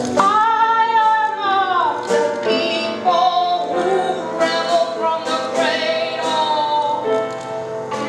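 A woman singing long held notes over piano accompaniment; the first note swells and falls away in pitch about two seconds in.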